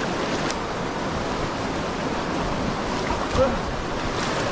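Fast-flowing mountain river rushing steadily over rocks. A short voice call cuts through about three seconds in.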